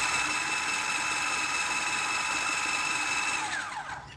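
Electric food chopper's motor running steadily with a high whine as it coarsely grinds rice and lentils, then winding down with a falling whine as it is switched off about three and a half seconds in.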